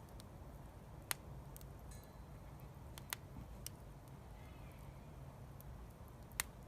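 Wood fire crackling: a few isolated sharp pops over a low, steady rumble.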